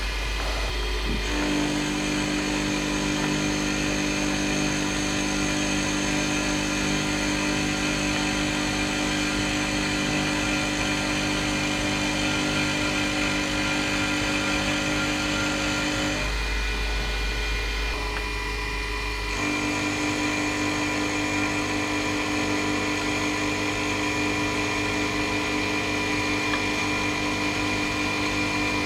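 A machine tool in a home machine shop runs steadily with a constant motor hum and whine. Its tone changes briefly about 16 seconds in and settles back about 19 seconds in.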